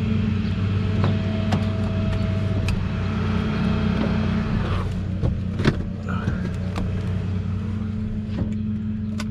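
A motor vehicle engine running steadily with a low, even hum, with scattered light clicks and a few knocks.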